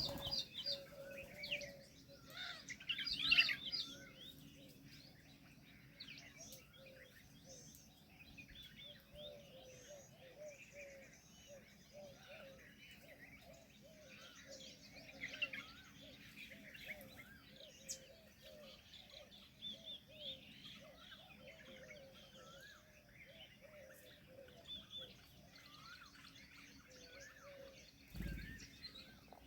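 Several wild birds chirping and calling together in a busy chorus of short high chirps, with a lower call repeated steadily underneath. A brief low thump comes near the end.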